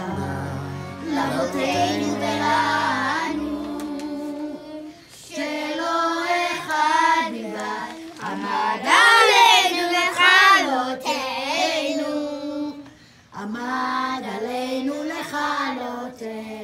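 A group of young children singing together in phrases with short breaks between them, with a few low instrumental notes underneath in the first few seconds.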